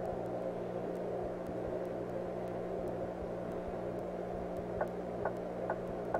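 Steady low electrical hum with a constant hiss, and a few faint ticks near the end.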